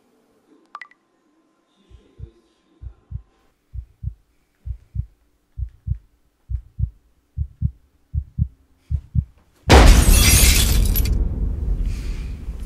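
Heartbeat sound effect: about nine low lub-dub double thumps that grow louder and come slightly faster. It is cut off by a sudden loud shattering crash that dies away slowly.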